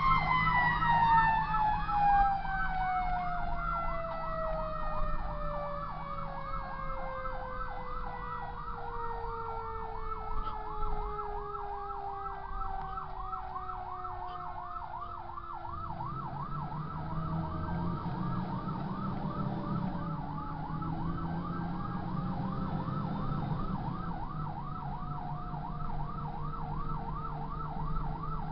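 Fire engine siren running on a fast, regular up-and-down yelp, while a second siren tone winds slowly down in pitch and fades out past the middle. The truck's engine rumbles underneath and gets louder a little over halfway through.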